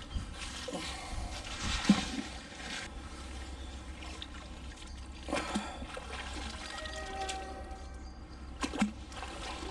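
Water trickling and splashing off a magnet fishing magnet and its wet rope as they are hauled out of the canal, with a sharp knock about two seconds in and further splashes later.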